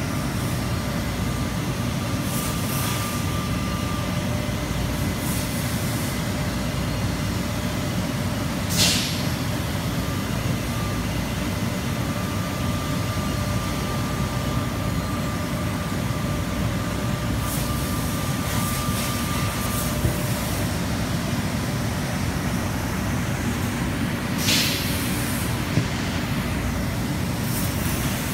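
CNC laser cutting machine running as it cuts knife blanks from sheet steel: a steady low machine drone with hiss. Short sharp hisses come about nine seconds in and again near twenty-five seconds, and a faint steady whine comes and goes.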